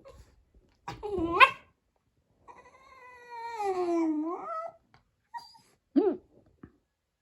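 A pet animal's protesting calls over a toy that another pet wants: a short call sharply rising in pitch about a second in, a long drawn-out call that dips and then rises, and a short call near the end.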